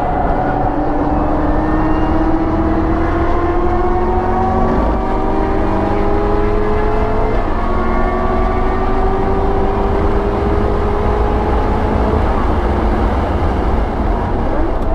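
Supercharged 6.2-litre V8 of a 2019 Camaro ZL1 1LE under hard acceleration, heard inside the cabin. The engine note rises steadily, drops at an upshift from third to fourth about seven seconds in, then rises again before levelling off near the end.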